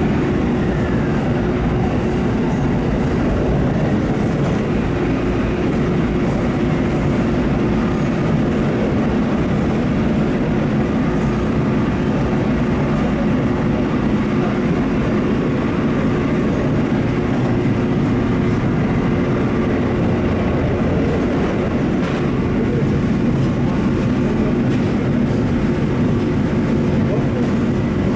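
KiHa E130-100 series diesel railcar running at speed, up to about 90 km/h, with its engine output limiter lifted: a steady engine drone over the continuous rumble of wheels on rail, with a few faint high squeaks.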